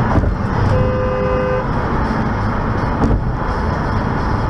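A car horn sounds once for about a second, over steady tyre and road noise on a wet highway heard from inside a moving car. Brief low thumps come near the start and about three seconds in.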